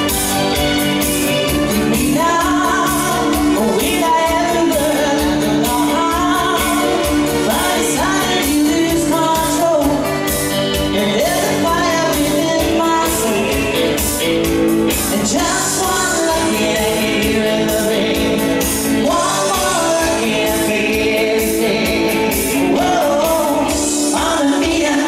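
Live band music through a PA in a hall: a woman singing pop into a microphone over electric guitar and keyboards with a steady beat. The voice comes in about two seconds in.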